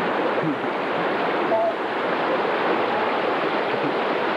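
Steady rushing noise like surf or running water, even in level, with a few faint voices.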